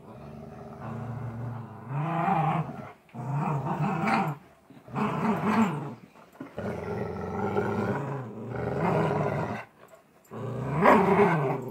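Golden retrievers growling in play while tugging on a toy. The growls come in about six rumbling bouts with short breaks between them, and the loudest is near the end.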